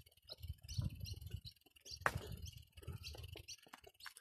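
Small birds chirping repeatedly in the trees, over low, irregular thuds of footsteps on a dirt path, with one sharp click about two seconds in.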